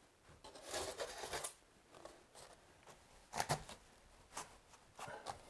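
Faint scraping and rubbing as a foam shower pan panel is handled and pressed onto a bed of notched thinset with a gloved hand, in a few short bursts, the clearest about three and a half seconds in.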